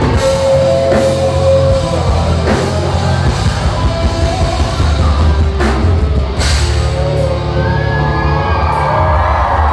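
Live heavy rock band playing loud, with drums, guitars and singing.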